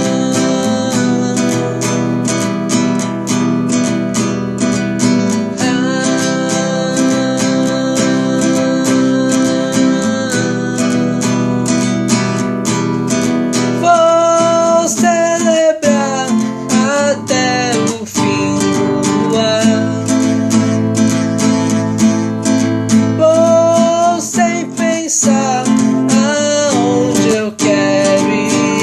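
Song with strummed acoustic guitar chords; about halfway through, a melody line with pitch slides comes in over the strumming.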